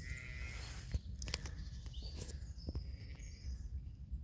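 Footsteps of someone walking, a few sharp steps among them, over a steady low rumble of wind on the microphone, with a few short bird chirps.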